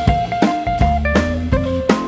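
Background music: a band track with guitar and a steady drum beat.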